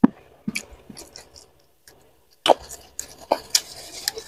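Close-miked eating sounds: fingers picking chili-sambal-coated food from a clay mortar with a knock at the start, then a run of crisp, wet clicks and smacks of chewing and lips during the second half.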